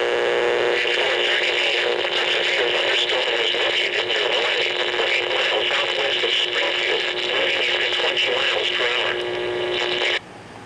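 Poorly received emergency alert radio broadcast: heavy static hiss with a steady hum and a garbled, unintelligible voice beneath it, cut off abruptly near the end.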